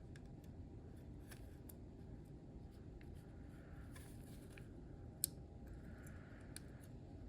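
Faint clicks and taps of small plastic scale-model suspension parts being handled and pressed together, with one sharper click about five seconds in, over a low steady room hum.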